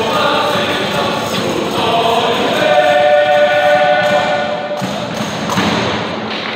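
Male student tuna choir singing in chorus with guitars, closing on a long held chord that breaks off about three-quarters of the way through.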